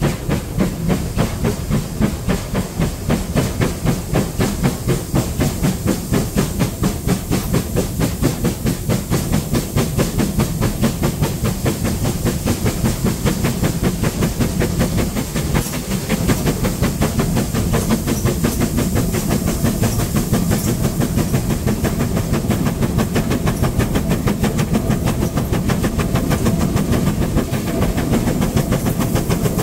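Steam locomotive running along the line, heard close alongside the engine: a fast, even rhythm of exhaust beats over a constant hiss of steam.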